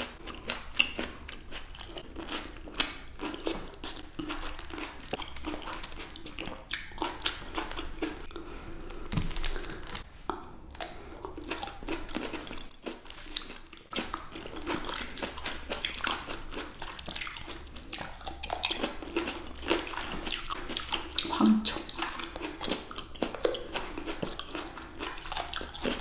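Two people biting and chewing fresh grapes close to the microphone: a dense run of crisp bites through the skins and juicy chewing, with many quick irregular clicks.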